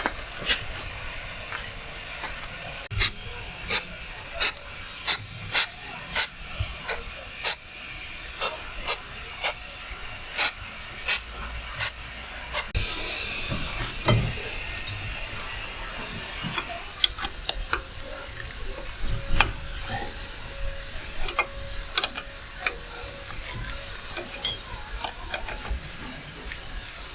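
Hammer blows on metal, a steady run of about fifteen sharp strikes roughly one every 0.7 seconds, stopping about thirteen seconds in, then a few scattered lighter knocks. The hammering is to shock loose a seized part on a GAZ Sobol's brakes and running gear.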